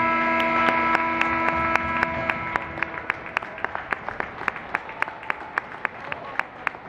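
Arena horn sounding for about three seconds, signalling the end of the game, over steady hand clapping at about three claps a second that goes on after the horn stops.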